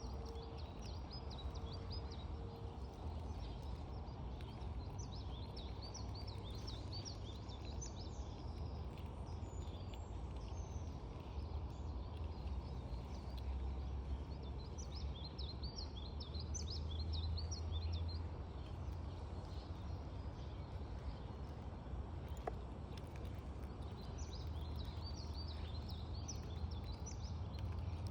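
Steady low background rumble, with small birds twittering in quick, high chirps in three spells.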